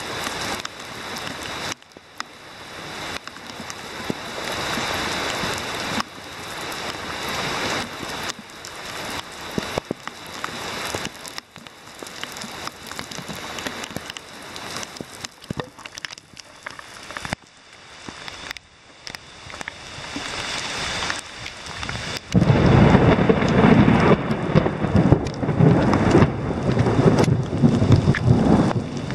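Heavy rain pouring down in surges. About two-thirds of the way through it turns suddenly much louder and deeper.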